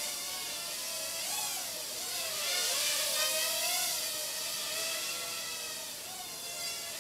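Bayangtoys X9 mini quadcopter's spinning propellers and motors whining in flight, the pitch wavering up and down with the throttle. It is loudest from about two to four seconds in, as it passes close.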